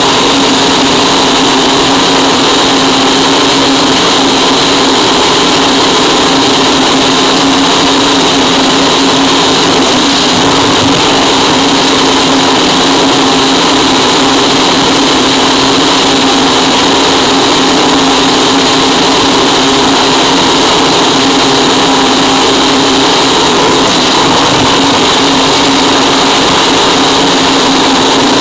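Harsh noise wall: a loud, dense, unchanging mass of distorted noise at every pitch, with a steady low drone and a bright hiss riding on top.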